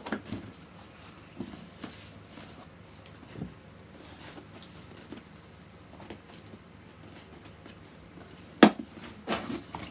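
A cardboard subscription box being handled and opened: faint rustling and scraping, with one sharp knock near the end and a few lighter knocks after it.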